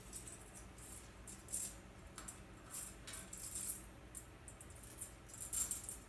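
Rose-ringed parakeet clambering on a metal wire cage: a few short, irregular rattling scrapes of claws and beak on the wire, the loudest near the end.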